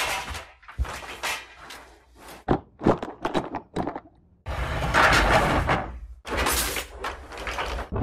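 A run of short machine sound effects: separate mechanical clunks and thunks with brief gaps between them, then a longer, louder stretch of dense mechanical noise from just past halfway, a short break, and another burst near the end.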